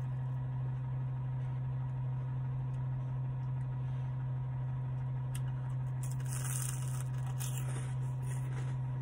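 Steady low hum of a car engine idling, heard from inside the cabin. About six seconds in there is a brief crisp crunching of an ice cream cone being chewed.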